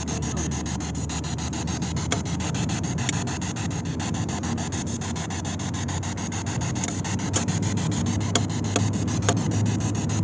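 Radio static from a ghost-hunting spirit box sweeping through stations: a steady hiss broken rapidly and evenly as it jumps channel, with a few sharp clicks and no voices coming through.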